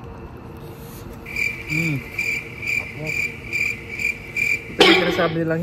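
Cricket chirping: a high, evenly pulsed chirp about three times a second that starts about a second in and stops abruptly near the end as music comes in.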